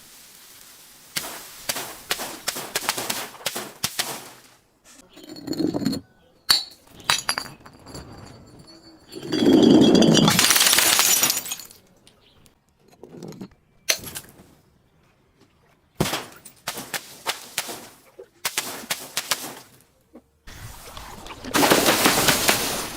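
Glass bottles breaking and being crushed in several separate bouts of crunching and clinking shards, with a longer, loud crash about ten seconds in and ringing clinks of glass between.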